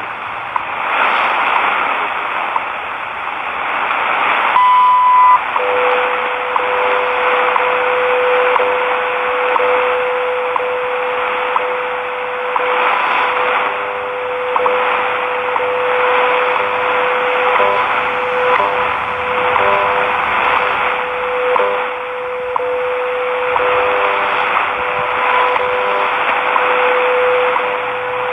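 WWV time signal on 10 MHz shortwave, heard through a portable radio's speaker under steady static hiss. About five seconds in comes the short high beep that marks the top of the minute, then a lower steady tone starts a second later and runs on under the hiss, dipping out briefly now and then.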